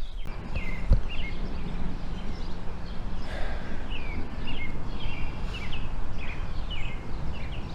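Low, steady rumble of distant thunder, with a sharp thump about a second in. From a little later, a bird repeats short downward-slurred chirps about twice a second.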